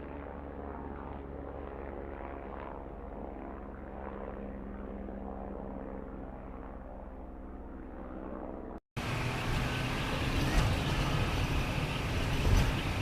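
Helicopter sound effect: a steady engine-and-rotor drone. About nine seconds in it cuts abruptly to a louder, rougher engine sound.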